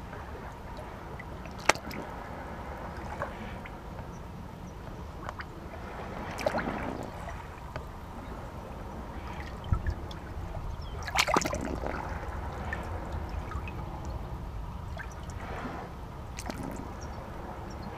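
Seawater lapping and trickling in a rocky shoreline crevice, with a few sharper splashes and drips over a steady low rumble.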